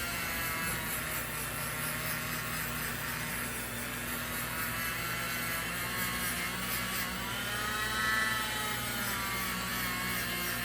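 Small electric rotary tool with a wire brush wheel running steadily against the knife, its pitch sagging and recovering briefly about eight seconds in.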